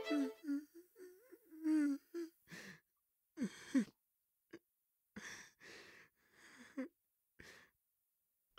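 A man crying quietly: a few short, wavering whimpers, then a run of shaky breaths and sighs.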